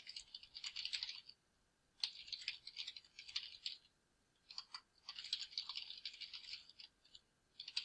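Typing on a computer keyboard: quick runs of key clicks in three spurts, with short pauses between them.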